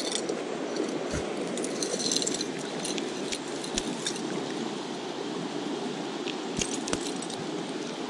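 Creek water running steadily, with scattered small clicks and handling rustles close to the camera.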